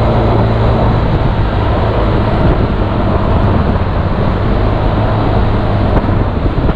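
Wind rushing over the microphone of a motor scooter riding along a road, with the scooter's engine running at a steady low hum underneath.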